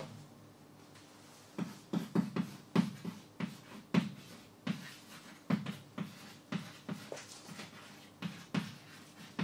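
Chalk writing on a chalkboard: an irregular run of short knocks and scratches as each letter is stroked onto the board, starting about a second and a half in.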